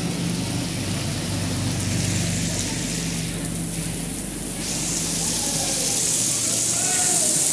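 Heavy rain falling steadily, growing louder in the last couple of seconds, under a low rumble that dies away about five seconds in.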